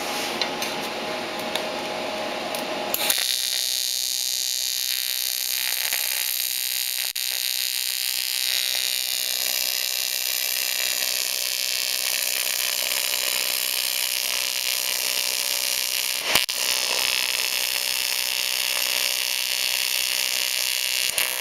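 Lotos TIG200 AC TIG arc buzzing steadily as it welds aluminum. The arc starts about three seconds in, and there is a single click about three-quarters of the way through.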